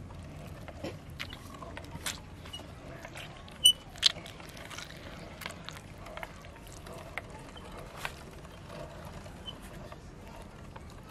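Hand-cranked metal meat grinder crushing a tomato: wet squishing of the pulp as the auger turns, with scattered clicks and knocks from the grinder, and two sharp loud clicks a little under four seconds in.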